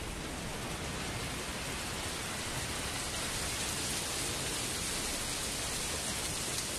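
A steady, even rushing noise like heavy rain, swelling slightly in level.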